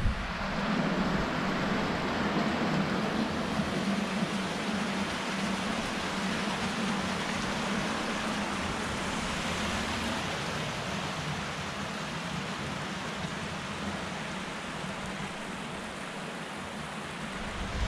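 Steady rush of water from a river cascade or waterfall pouring over rock, an even noise with no breaks.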